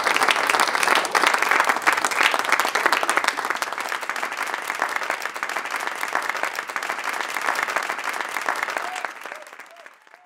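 Live audience applauding in many rapid claps. The applause fades out over about the last second.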